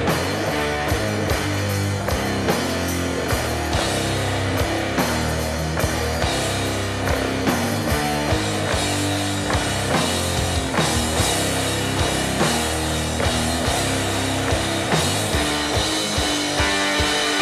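Loud rock music: a band with distorted electric guitar, bass and a drum kit keeping a steady, driving beat with cymbals.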